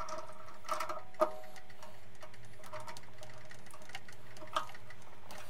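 A few light metallic clicks from a chuck key turning in a small lathe's three-jaw chuck, tightening the jaws on an aluminium workpiece, over a steady hum.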